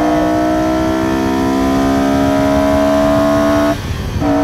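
Honda S2000's F20C four-cylinder engine pulling hard in second gear through the VTEC range, its revs climbing steadily with a loud induction note from the K&N FIPK open-cone intake. About three and a half seconds in the note breaks off briefly, then comes back steady.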